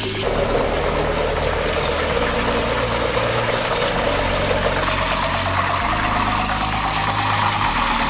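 Water rushing down a small concrete spillway into a pipe, with a whine that rises slowly and steadily in pitch as the miniature hydroelectric turbine spins up.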